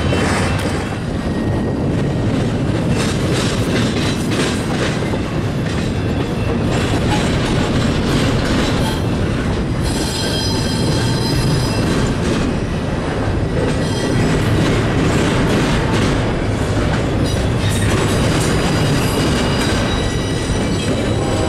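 Double-stack intermodal freight train's container-laden well cars rolling steadily past, wheels clattering over the rails. A thin high metal squeal from the wheels comes in about ten seconds in and fades a few seconds later.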